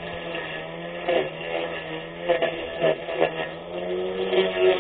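A 24V brushless electric grass cutter running, a steady motor hum and whine with brief swishing bursts several times as the blade cuts through grass. The pitch of the whine wavers under the load.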